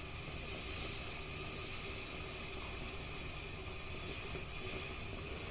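Consumer firework fountain burning with a steady hiss.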